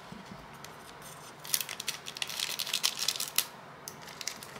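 Foil Pokémon booster pack wrapper crinkling as it is opened, a dense crackle starting about a second and a half in and lasting about two seconds, with a few lighter ticks after.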